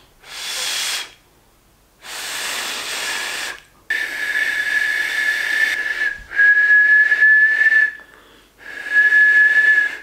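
A beginner's two-finger whistle: five separate blows through fingers in the mouth. The first two are mostly a rush of breath; the last three sound as a high whistle held on one steady note for a second or two each, with breath hissing around it.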